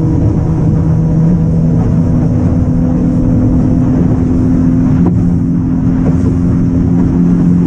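Fishing boat's engine running steadily under way, a constant low drone of several tones over the rush of water and wind.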